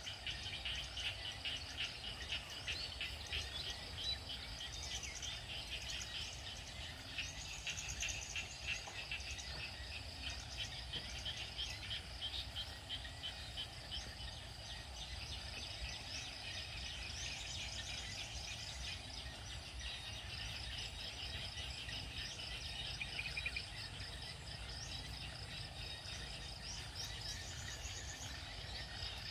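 A chorus of frogs and insects calling after rain: many rapid pulsed, chirping calls overlapping without a break, over a low steady rumble.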